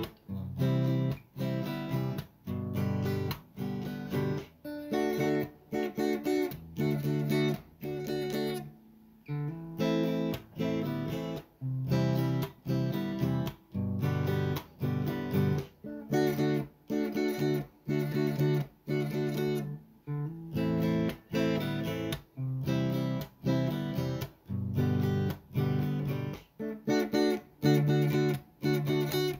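Background music: strummed guitar chords in a steady, even rhythm.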